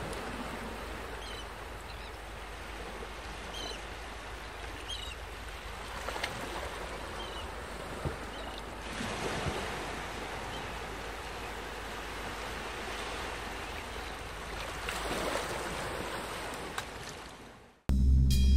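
Sea ambience: waves washing with a steady rush of wind and water, and a few faint high chirps in the first five seconds. It fades out near the end and loud music with a heavy low beat cuts in.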